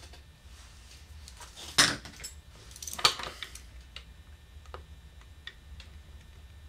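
Small metallic clicks and clinks as a screwdriver is set into the end of an oboe's key rod and the keywork is handled, with two sharper clicks about two and three seconds in and lighter ticks after.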